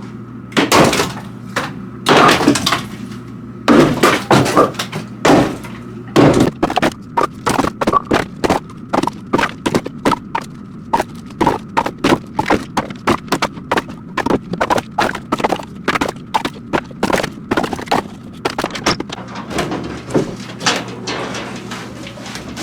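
Split firewood being tossed down one piece at a time, hollow wooden knocks and clatters as the logs land on one another. There are a few at first, then a quick run of two or three a second.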